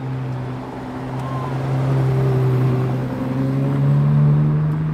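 Ferrari 812 Competizione's naturally aspirated V12 engine running at low revs as the car drives slowly past, its note rising a little about four seconds in.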